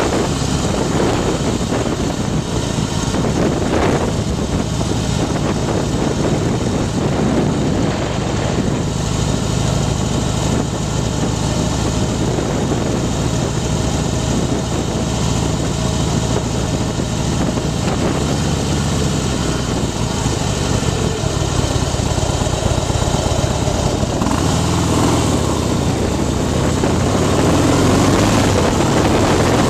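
Harley-Davidson Night Train's air-cooled V-twin, bored out to 103 cubic inches with a Screamin' Eagle Stage II big bore kit, running steadily under way. It gets a little louder near the end.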